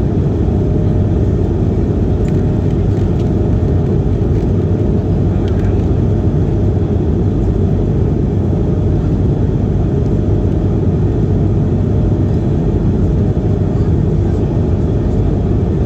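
Steady cabin noise inside an Airbus A220-300 in flight: its Pratt & Whitney PW1500G geared turbofans and the airflow make a deep, even rush, with a faint steady hum above it.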